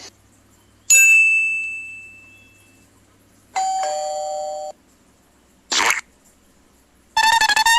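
A run of short sound-effect clips played one after another: a struck bell-like ding that rings out and fades, a held electronic tone lasting about a second, a quick swish, then a fast warbling cartoon-style tone near the end.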